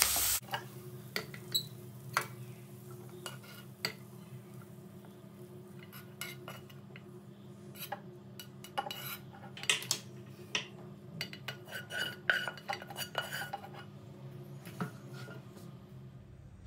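A spatula scrapes and taps against a non-stick frying pan and a steel mixer jar while cooked onion and tomato are spooned from one to the other, in scattered light clicks and knocks. A steady low hum runs underneath.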